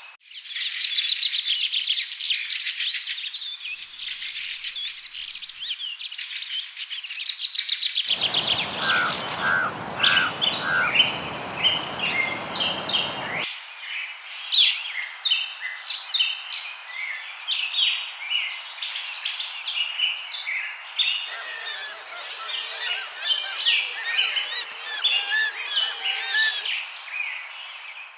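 Songbird singing a fast, varied song of high chirps and trills. About eight seconds in, a steady hiss of background noise comes in for some five seconds, with four short lower notes in it.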